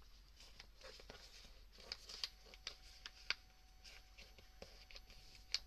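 Sheet of printer paper being folded and creased by hand: faint scattered rustles and crisp little crackles, a few of them sharper, around two, three and five and a half seconds in.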